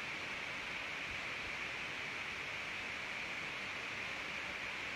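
Steady, even hiss of room noise picked up by a phone's microphone, with no other sound.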